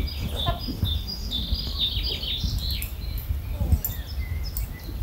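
Small birds chirping in quick runs of short, high calls, densest from about one to three seconds in, over a steady low rumble.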